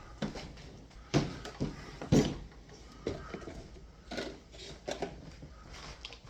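Several knocks and clunks in a small room, the two loudest about one and two seconds in, with fainter ones after.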